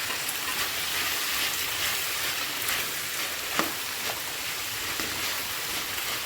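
About 2 kg of chopped onions frying in ghee and oil in a wide uruli pan, sizzling steadily as they soften, with a few clicks of stirring.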